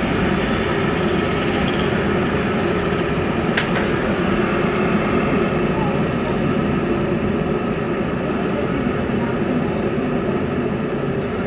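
Fidget spinner whirring steadily on its bearing after a flick, with a single sharp click about three and a half seconds in.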